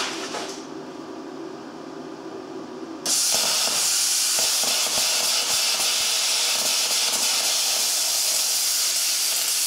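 Plasma cutter torch firing about three seconds in: a sudden loud, steady hiss of the air jet and arc, with a few crackles as it cuts the metal. Before it, a steady low hum.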